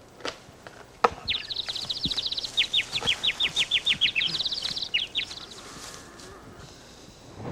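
A bird calling in a fast run of short, high, downward-sliding chirps that lasts about four seconds, starting just after a sharp click about a second in.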